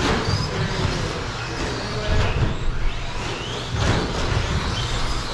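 Electric RC short-course trucks racing on an indoor carpet track: their motors whine, rising and falling in pitch as they speed up and slow down. There are a few sharp knocks along the way.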